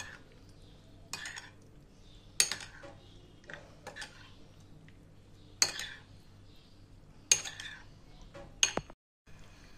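Metal spoon stirring chicken chunks in a yogurt-and-spice marinade in a ceramic bowl, clinking and scraping against the bowl. The clinks are sharp and irregular, several seconds apart.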